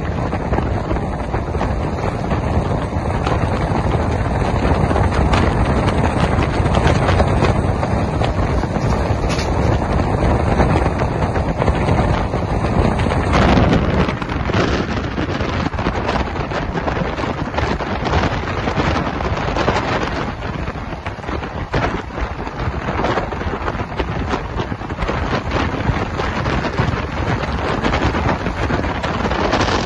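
Wind rushing over a microphone held out of a moving LHB passenger train, over the train's steady running noise on the rails. About halfway through the rushing turns choppier, with rapid irregular buffets.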